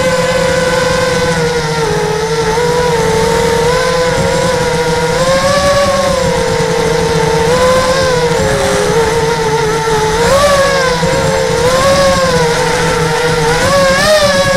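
Small radio-controlled aircraft's electric motors and propellers whining, heard from a camera on board, the pitch wavering up and down with the throttle and rising sharply near the end. A low rumble of wind and vibration on the microphone lies beneath.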